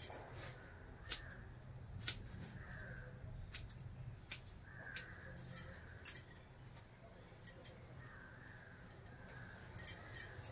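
Hair-cutting scissors snipping through long hair: a scattered series of sharp, irregular snips, with a low steady hum underneath.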